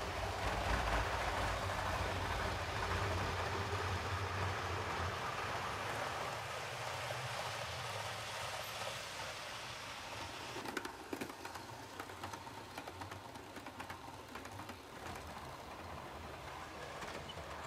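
OO-gauge model train, a Hornby RailRoad Class 37 locomotive hauling a rake of coaches, running on the track: a steady motor hum and wheel rumble, louder for the first five or six seconds, then quieter with scattered clicks from about ten seconds in.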